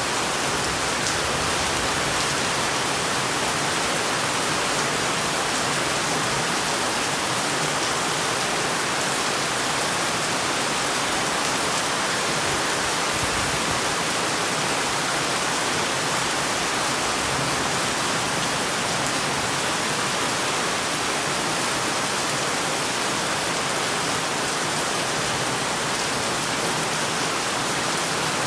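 Heavy rain falling steadily: an even, unbroken hiss with no let-up.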